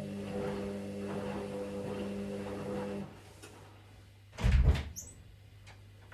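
Washing machine motor humming steadily, cutting off about halfway through, followed about a second and a half later by a single heavy thump and a few faint ticks.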